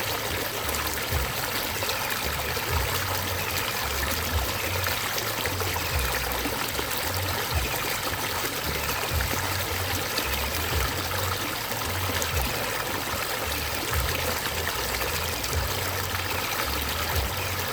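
Flowing water trickling steadily, with an uneven low rumble beneath.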